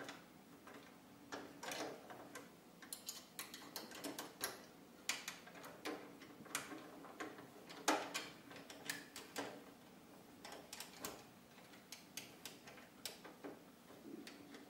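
Faint, irregular clicks and taps of a hex key turning the screws that fasten a plastic spool holder to the back of a 3D printer.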